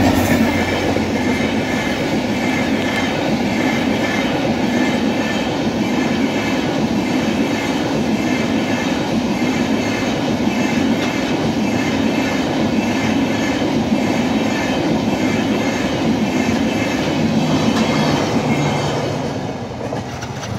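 LHB passenger coaches passing close by at speed: a steady rush and rattle of steel wheels on the rails. It fades near the end as the last coaches pull away.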